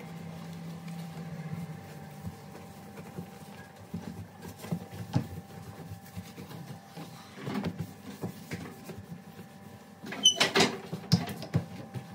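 A microfiber glass cloth wiping and rubbing over a glass gas hob, with scattered soft rubs and light clicks. A louder flurry of rubbing and clicks comes about ten seconds in.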